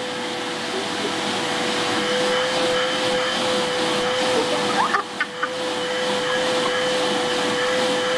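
Vacuum cleaner running with a steady whine, its hose nozzle drawn over a Labrador retriever's coat to groom it. The sound dips briefly, with a few short squeaks, about five seconds in.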